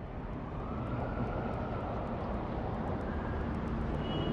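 A steady rumbling noise that swells up out of silence, with a faint whoosh rising and falling in pitch and light, quick ticking above it.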